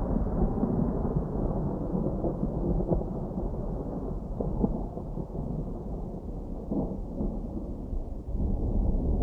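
Distant thunder rolling in a long, continuous low rumble that swells and eases without a sharp crack.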